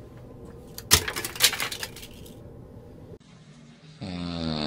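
Sharp clinking and rattling for about a second and a half. Near the end a sleeping person starts a long snore, its pitch sliding down.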